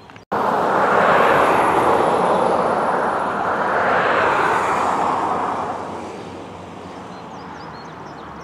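Road traffic passing close by: a loud rush of tyre and engine noise that swells twice and fades out about six seconds in.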